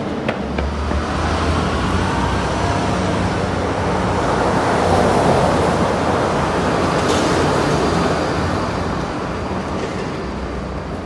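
Road traffic noise, a steady rumble with a low hum, swelling to its loudest about halfway through and then easing off.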